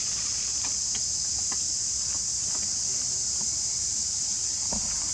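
Steady, unbroken high-pitched drone of an insect chorus, with a few faint scattered ticks beneath it.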